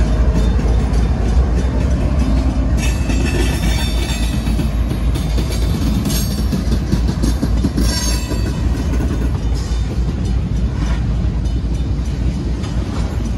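A CSX freight train passing close by: the trailing diesel locomotives rumble past, then the freight cars, coal hopper and tank cars, roll by on steel wheels in a steady loud rumble, with a few sharp metallic knocks.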